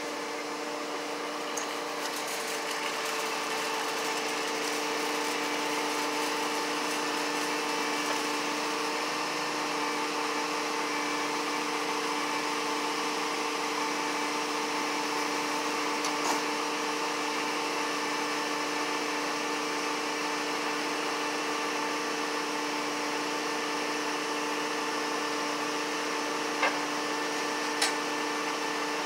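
Steady mechanical hum with a couple of clear steady tones over a hiss, like a running motor or fan, with a few faint clicks near the end.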